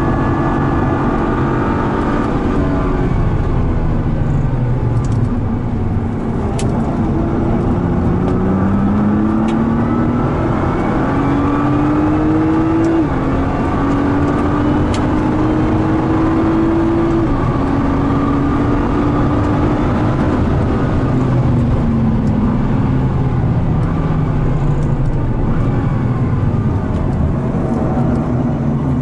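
Nissan R35 GT-R's twin-turbo 3.8-litre V6 heard from inside the cabin at speed on a race track, over steady tyre and road noise. The engine note drops off at first, then climbs through the gears with two quick upshifts a few seconds apart near the middle, eases off again and starts to rise once more near the end.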